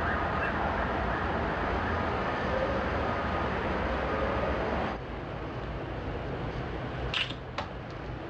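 Distant city traffic hum with a faint siren wailing. It cuts off abruptly about five seconds in, leaving quieter room tone, and a few sharp clicks from a laptop keyboard come near the end.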